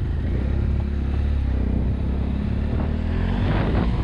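BMW F800GS parallel-twin engine running steadily as the motorcycle pulls away and rides off.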